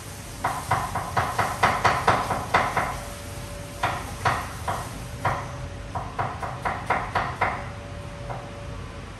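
Knife chopping on a cutting board in quick runs of sharp knocks, about five a second, in three bursts with short pauses between.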